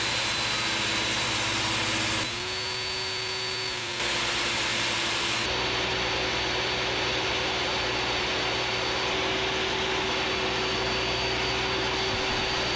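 Table saw running steadily while a board is fed along the fence to rip it: a constant whirring noise with a steady hum and a high whine. The sound shifts abruptly twice, about two and five seconds in.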